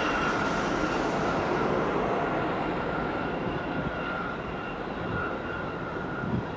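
Jet engines of a Ryanair Boeing 737 running at takeoff power through the takeoff roll and lift-off: a steady rushing noise with a thin high whine held through it, easing slightly toward the end.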